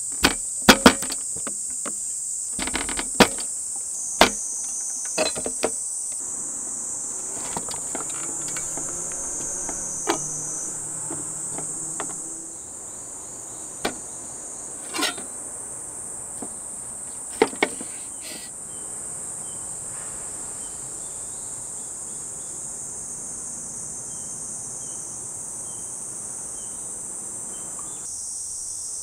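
Steady, high-pitched insect chorus, with scattered sharp knocks and taps through the first eighteen seconds or so, the loudest in the first few seconds.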